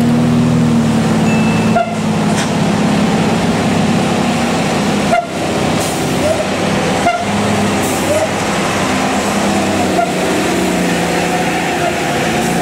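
Traffic climbing a steep hairpin bend: heavy diesel trucks running hard uphill, with cars and motorbikes passing. The sound breaks off abruptly for a moment three times.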